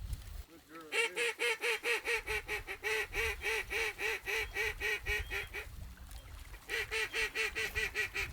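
Duck quacking in a fast, evenly spaced run of about five notes a second, going on for about five seconds, then a second, shorter run after a brief pause.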